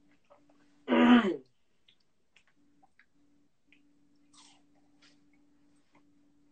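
A person chewing crunchy snack cookies, heard as faint scattered crunches and clicks. About a second in comes one loud, short voice sound that falls in pitch. A faint steady hum runs underneath.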